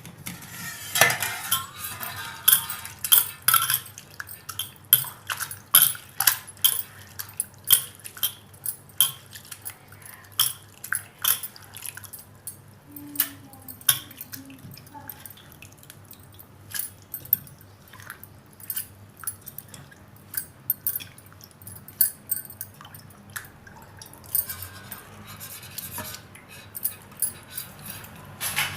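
Fenugreek leaves being washed by hand in a vessel of water: water splashing and dripping as the leaves are lifted out, with many irregular clinks and knocks of dishes.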